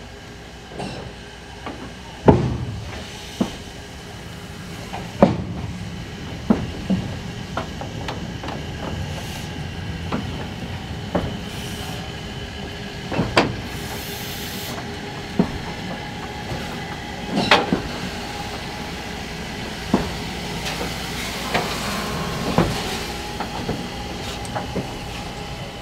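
Class 50 steam locomotive 50 3610-8 being turned on a locomotive turntable: a steady hiss and hum, broken by irregular metallic clunks and knocks every second or two.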